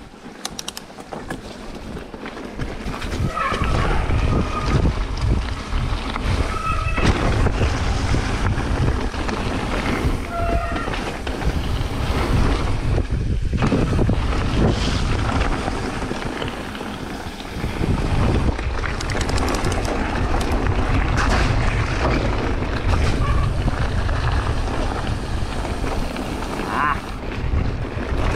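Wind buffeting the microphone of a camera on a moving mountain bike, over the rumble and rattle of the bike rolling along a trail. It grows louder over the first few seconds and then stays loud, with a few short clicks and knocks.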